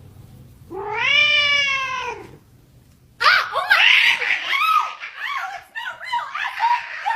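A cat meowing: one long drawn-out meow that rises and falls, then, about three seconds in, a rapid run of many short meows that sometimes overlap.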